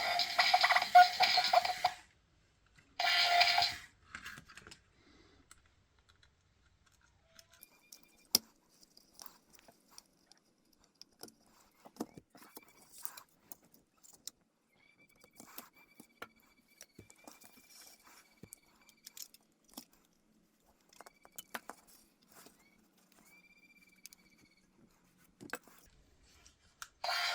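Scattered light clicks, taps and small rattles, as of small plastic and metal parts of the toy robot being handled, after two short bursts of loud electronic sound at the start.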